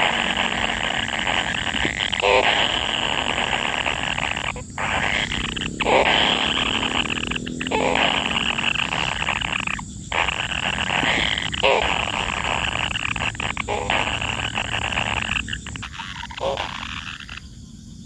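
Kingfisher nestlings in the nest burrow giving their harsh, buzzing begging churr, a near-continuous rasping sound broken by brief pauses every second or so.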